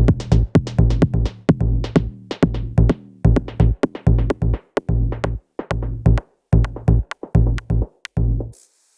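Electronic dance music with a fast drum-machine beat over heavy bass. It stops abruptly near the end.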